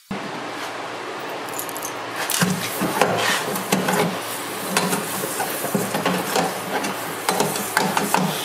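A hot steel blade quenched in oil in a small steel tank: the oil sizzles and crackles as it burns, with many sharp clicks and clatter of the blade and tongs against the tank. It starts suddenly and grows louder about two seconds in.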